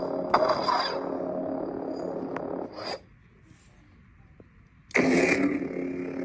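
Lightsaber sound board playing through its speaker: a steady pitched hum with a sharp burst just after the start, then the blade retracting about three seconds in. After about two seconds of near silence it ignites again and the hum resumes.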